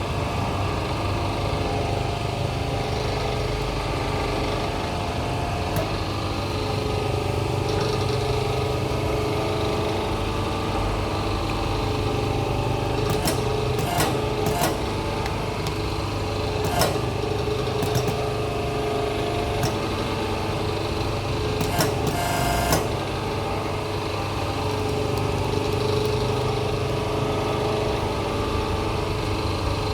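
Hydraulic hose crimping machine's power unit running with a steady hum, with several sharp metal clicks and knocks from handling the machine and its die in the middle stretch.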